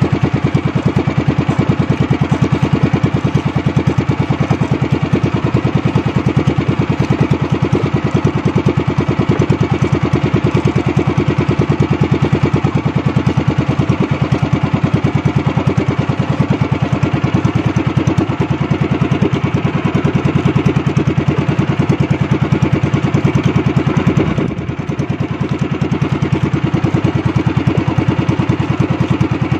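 Outrigger fishing boat's engine running steadily under way, a fast even pulse, with a brief dip in level about four-fifths of the way through.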